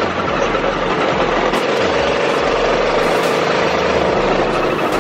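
Motorbike engine running steadily while riding, with rushing air noise over the microphone.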